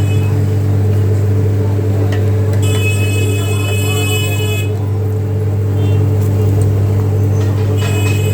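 A steady low machine hum runs throughout. A shrill high-pitched tone sounds over it for about two seconds, starting a little over two seconds in.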